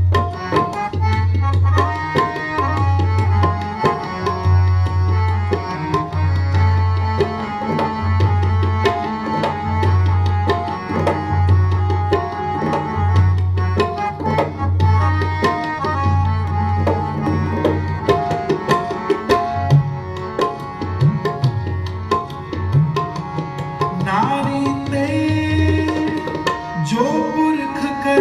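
Tabla playing a fast, dense rhythm, the bass drum booming about once a second, over steady sustained notes from a harmonium in an instrumental interlude of Sikh kirtan. Gliding tones come in near the end.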